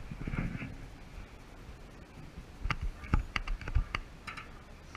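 Camera handling noise: sharp clicks and knocks, one right at the start and a quick run of five between about three and four seconds in.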